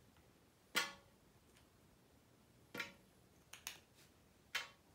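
Small plastic pens and their caps clicking as they are handled: five short, sharp clicks, the first, about a second in, the loudest.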